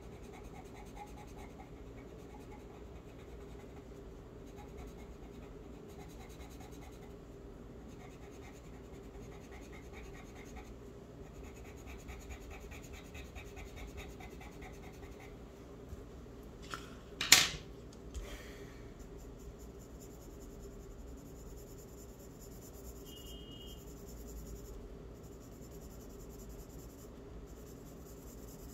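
Faint scratching of a pencil drawing strokes on paper, with one sharp knock partway through.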